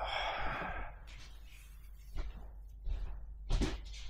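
A long breathy exhale like a sigh in the first second, then a few soft knocks.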